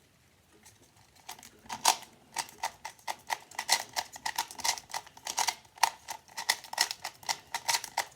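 Plastic speed cube being turned rapidly by hand, a fast run of clicking and clacking layer turns that starts about a second in.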